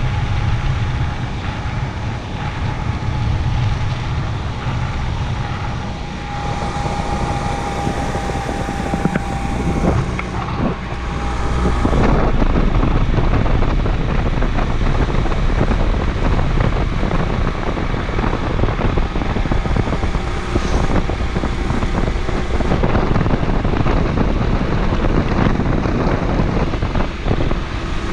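Honda CD125T's 125 cc air-cooled twin-cylinder engine running under way, mixed with heavy wind rush on the camera microphone. It gets louder and its tone rises about twelve seconds in.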